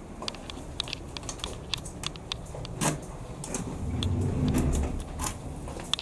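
Automatic sliding glass entrance doors running, a low motor rumble that swells about four seconds in, with scattered light clicks and taps.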